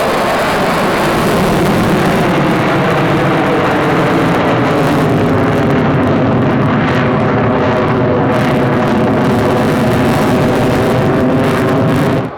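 Fighter jet engine noise during a low pass, a loud steady roar with a layered droning tone. It cuts off suddenly near the end.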